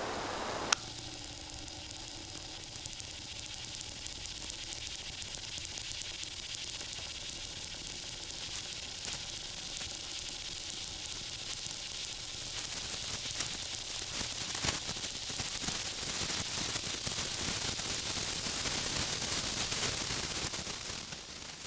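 Torch flame hissing, cut off with a click under a second in. After it, the molten glowing drop of a Senko Hanabi sparkler sizzles with a fine crackle that grows denser and louder as it starts throwing sparks, then fades near the end.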